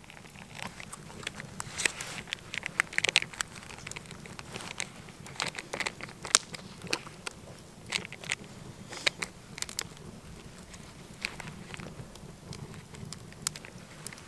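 A spoon stirring oatmeal inside a paper instant-oatmeal pouch: the pouch crinkles and crackles, with irregular sharp scrapes and clicks.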